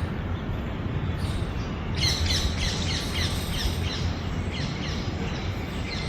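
A bird calling in a quick run of short, falling chirps, about four a second, starting about two seconds in and lasting a couple of seconds, over a steady low rumble of outdoor background noise.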